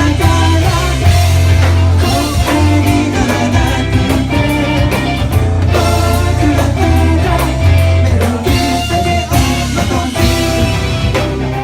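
A live rock band playing a song, with electric guitar, bass and drum kit, and some singing.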